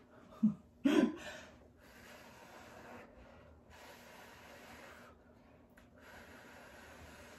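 A person blowing hard through pursed lips in a series of long exhalations, each about a second, pushing wet acrylic pour paint across a surface to feather it out. Two short voiced sounds from her about half a second and a second in are the loudest moments.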